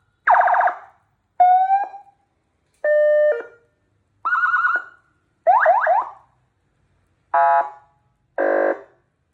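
Priority-vehicle electronic siren being stepped through its tone modes: seven short bursts about a second apart, each a different sound, with warbling and rising whoop tones, a steady two-tone, and two buzzy horn-like blasts near the end.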